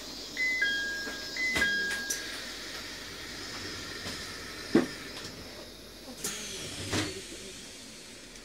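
Inside a JR East E721-series electric multiple unit standing at a station: a two-note falling door chime sounds twice, followed by a few knocks and a brief hiss of air as the doors work.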